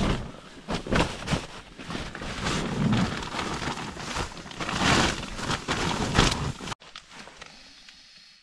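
Rustling and crinkling of a thin reflective foil-like sheet and tent fabric as someone moves about inside a small tent, coming in irregular swells. The noise drops away abruptly about seven seconds in, leaving only faint handling sounds.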